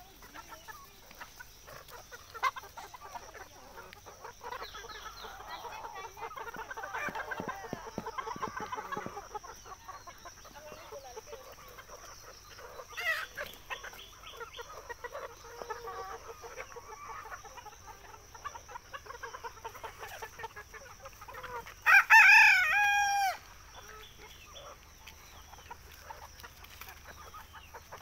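A flock of free-range desi chickens clucking and chattering. About two-thirds of the way through a rooster crows once, loud and lasting over a second, the loudest sound here.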